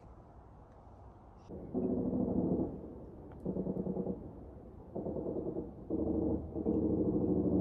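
A low, pitched droning hum of unknown origin. It sets in about two seconds in and comes in bursts of about a second each, and the last burst is held.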